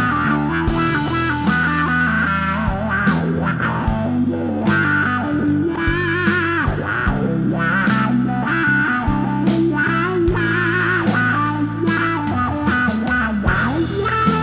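Electric archtop guitar played through a 1978 Morley PWA optical wah pedal, with the wah and volume working together. A continuous run of notes, their upper tones sweeping back and forth with the wah.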